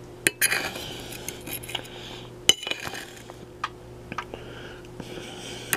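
A metal fork clinking and scraping on a dinner plate as food is scooped up: a few separate clinks, the sharpest about two and a half seconds in.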